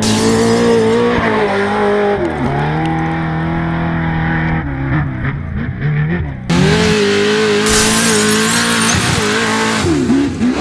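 Racer Engineering race truck #7's engine running hard at high revs, its pitch falling and climbing back about two and a half seconds in and again near the end. About six and a half seconds in, a loud rushing hiss suddenly joins it.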